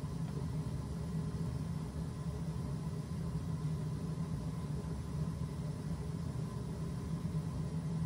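Gas-fired steam boiler with its burner firing while it builds steam pressure: a steady low rumble.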